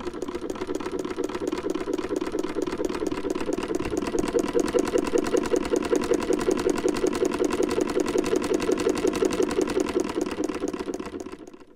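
Sewing machine running at a steady speed on a poly V drive belt, a fast, even mechanical clatter that winds down and stops near the end.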